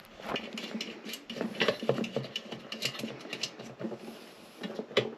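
Irregular small clicks, taps and rattles of metal parts being handled and fitted as a replacement bathroom exhaust fan motor is set into its housing.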